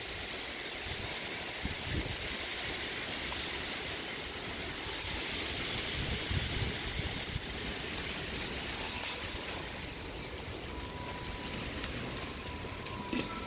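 Thunderstorm wind blowing steadily just ahead of a tornado, with uneven low rumbling gusts buffeting the microphone.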